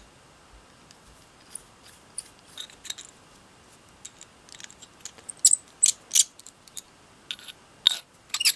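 Small metal parts of a brass nesting screwdriver clicking and clinking as it is handled and its stored blades are moved about, a few light clicks at first, then a quick run of sharper clinks in the second half.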